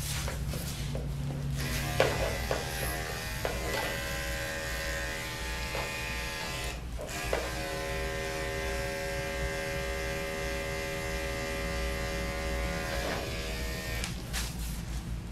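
Andis electric dog clippers with a #7 blade buzzing steadily while clipping a dog's body coat, with a few brief clicks about 2 and 7 seconds in.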